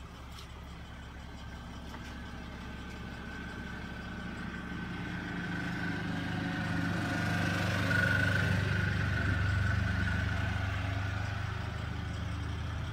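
Mercedes-Benz Sprinter 519 CDI's V6 diesel engine idling steadily, growing louder toward the middle, with a thin steady whine over it.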